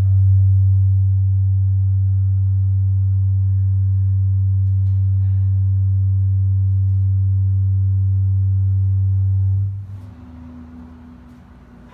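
A steady low hum of about 100 Hz with faint overtones, the drive tone that sets the tray's fine grains vibrating into a pattern; it cuts off abruptly near the end, and the grains fall still.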